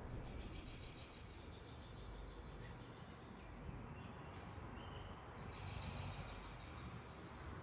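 Faint outdoor ambience with insects trilling, a high, fast-pulsing buzz that breaks off for a couple of seconds a little past the middle and then starts again.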